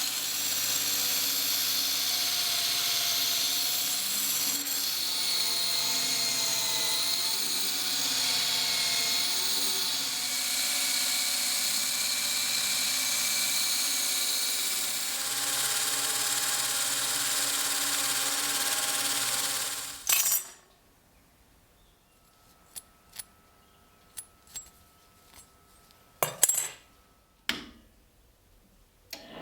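A power tool runs steadily, its motor pitch wavering slightly as it works, and cuts off abruptly about two-thirds of the way through. Afterwards there are a few light clicks and a couple of sharper knocks from handling.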